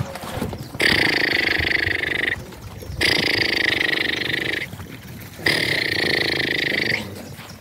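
Holstein heifer calf bawling three times, each call a drawn-out, steady, rasping cry of about a second and a half.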